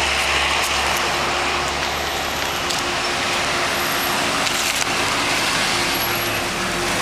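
Road traffic going by: steady tyre and engine noise from passing cars, with no horn sounding.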